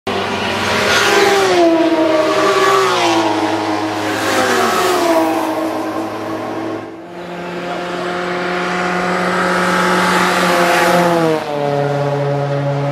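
GT race cars passing at high speed one after another, each engine note dropping in pitch as the car goes by, with several engines overlapping.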